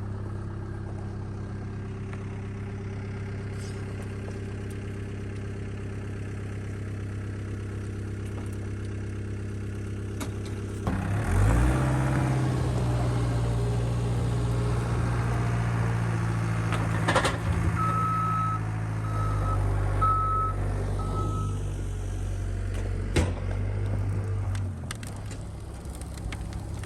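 Cat 242B3 skid steer's diesel engine idling, then revving up about eleven seconds in and running at higher throttle as the machine works, dropping back near the end. Four short reverse-alarm beeps sound partway through.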